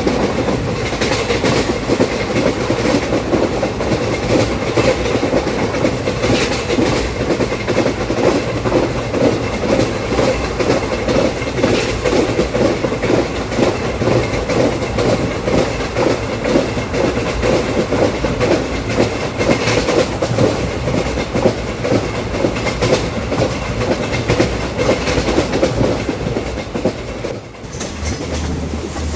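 Train wheels clattering over rail joints in a steady, rhythmic clickety-clack of a running train. The sound dips briefly near the end and comes back with a low hum under it.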